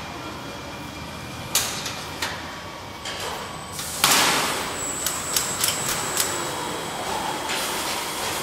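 Fully automatic plastic-strap strapping machine working through a strapping cycle. Short rushes of air about one and a half and four seconds in, the second the loudest, then a quick run of sharp clicks with a thin high whine.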